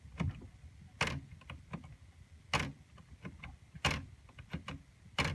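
Antique Corona No. 4 portable typewriter's line-space lever being worked line after line: four sharp clacks about every second and a half, with lighter clicks between. The lever catches where a metal piece contacts the rubber and has to be pressed back by hand.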